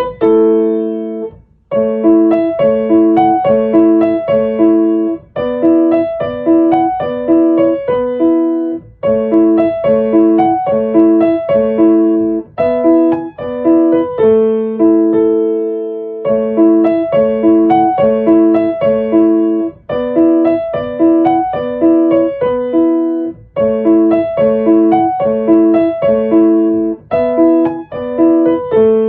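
Background music: a piano or electric piano playing a light, repeating melody with steady chords.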